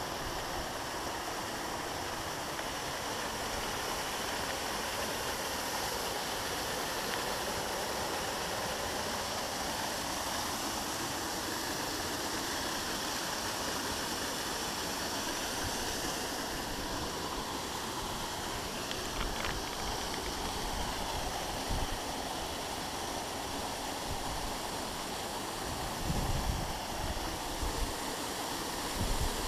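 Small waterfall pouring down a rock face onto boulders: a steady rush of falling water. A few low thumps come in near the end.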